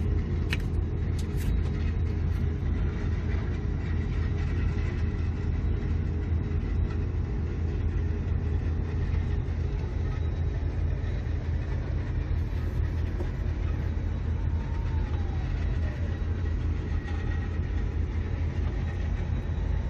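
Volvo EC300 excavator's diesel engine running steadily, heard from inside the operator's cab as a low, even drone. A few light clicks come in the first second and a half.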